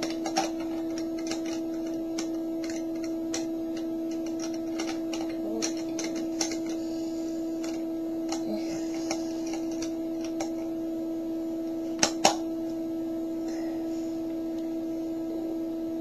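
Snap Circuits speaker giving a steady, unchanging low electronic tone with a fainter higher overtone, not a rising and falling siren. Light plastic clicks from snap-together parts being handled on the board come over it, with two sharper snaps about twelve seconds in.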